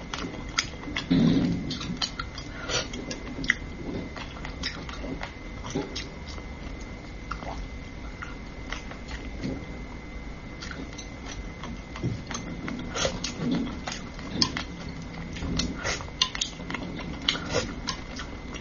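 Close-miked eating of spicy braised fish: wet chewing, lip smacks and sharp mouth clicks, irregular and scattered throughout, as fish is picked off and sucked from chopsticks.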